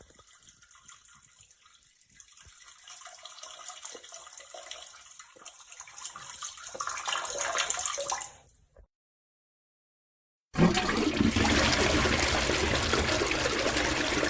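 Rushing, water-like noise that swells over about eight seconds and cuts off. After a brief silence a much louder rushing noise starts suddenly.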